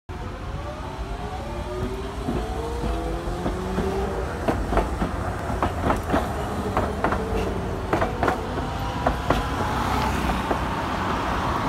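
Hiroden streetcars passing on street track: a low rumble with an electric motor whine that rises in pitch, then a run of sharp clacks as the wheels go over rail joints. Another whine comes in near the end as a second tram approaches.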